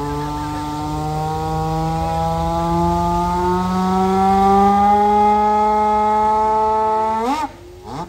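Steam siren sounding one long note whose pitch creeps slowly upward, then sweeps up sharply and cuts off abruptly near the end.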